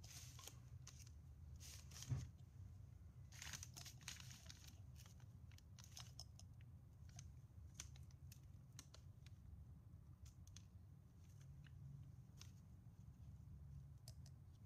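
Faint handling sounds: a glass jar set down on a paper-covered bench with one sharp knock about two seconds in, then a small spoon scraping and clicking as it scoops fine black powder from the jar and tips it into a cardboard tube. A low steady hum lies under it.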